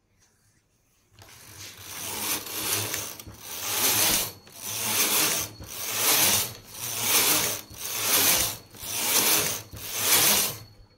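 Domestic flatbed knitting machine carriage pushed back and forth across the needle bed, knitting plain rows: a rattling, clattering swish that swells and fades with each pass, about nine passes roughly a second apart, starting about a second in.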